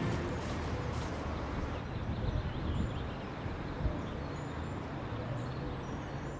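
Outdoor ambience: a steady low rumble with faint, short, high chirps, and a single thump about four seconds in.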